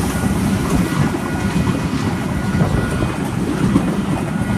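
NSW TrainLink XPT passenger train passing through the station, its carriages rolling past in a steady rumble of wheels on rail.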